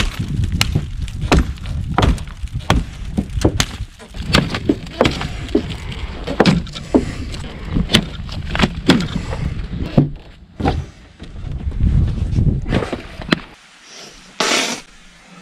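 Ontario SP-53 bolo knife (5160 carbon steel) hacking repeatedly into a car's shattered windshield: sharp strikes roughly one to two a second, with glass crunching and breaking. The strikes stop about two seconds before the end.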